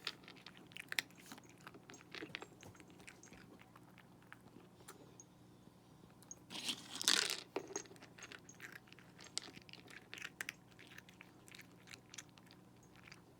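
A cat crunching dry food from a Catit multi feeder, a plastic slow-feeding tray, with many small sharp crunches and clicks. A louder, noisier burst comes about halfway through.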